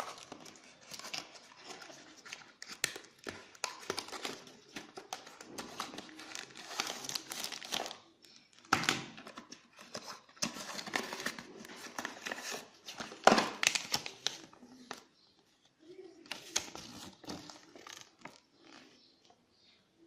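Packaging crinkling and rustling as it is handled, with many small clicks and two louder knocks near the middle; it grows quieter and sparser in the last few seconds.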